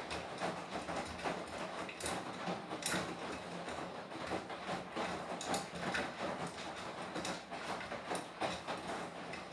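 Beko WTK104121W washing machine mid-cycle, its drum turning and tumbling the wet load: a steady rushing noise broken by irregular clicks and knocks.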